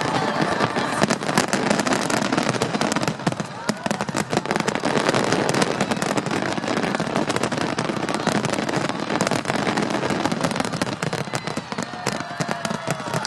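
Fireworks display: a dense, continuous crackle of many small pops from bursting shells, with voices of the crowd under it.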